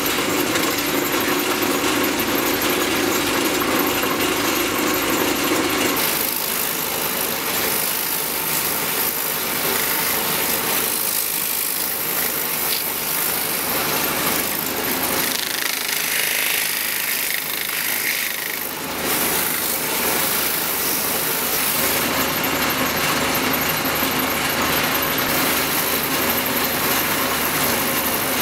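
Wood lathe spinning a wooden plate while a hand-held abrasive and a cutting tool are worked against the wood: a continuous hissing, scraping noise. It shifts in tone about six seconds in and again around nineteen seconds.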